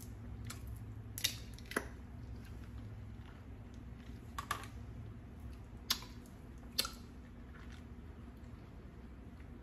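About five short, sharp clicks and crunches, spread out with pauses between them, as food is handled and bitten into, over a steady low hum.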